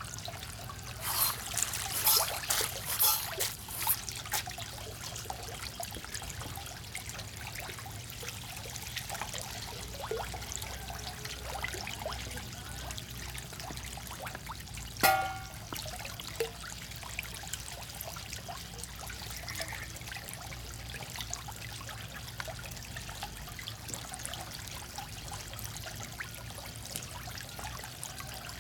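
A packed crowd of farmed frogs scrambling and splashing in shallow water over floating feed pellets, a continuous crackling patter of small splashes. There are louder bursts of splashing in the first few seconds and one short, sharp squeak about halfway through.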